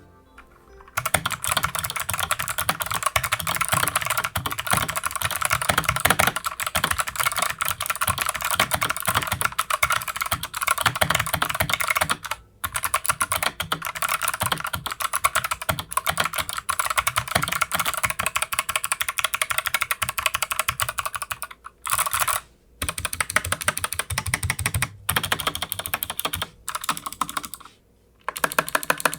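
Fast typing on an Anne Pro 2 mechanical keyboard with clicky Kailh Box White switches and PBT dye-sublimated OEM-profile keycaps: a dense, rapid stream of key clicks that starts about a second in and stops briefly a few times.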